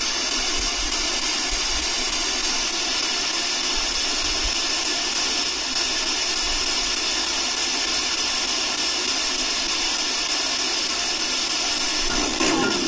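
Steady hiss with a few faint steady tones running through it, unchanging throughout; a brief faint breath- or voice-like sound near the end.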